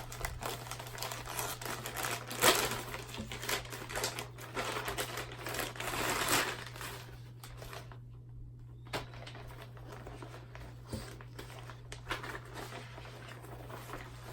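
Packaging being handled and rummaged through: crinkling and rustling with clicks, and one sharp knock about two and a half seconds in. After about seven seconds it grows quieter, with only a few separate clicks, over a steady low electrical hum.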